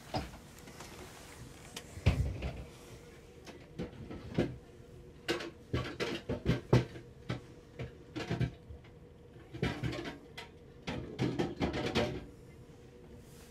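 Irregular knocks and clunks, like doors or fittings being handled, coming in clusters, with the loudest about two seconds in and near seven seconds.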